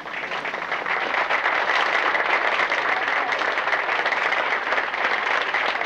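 Large audience applauding, many hands clapping in a dense, even patter that builds over the first second and then holds steady.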